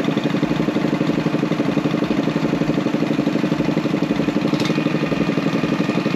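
Small engine running steadily with a rapid, even beat and a steady hum.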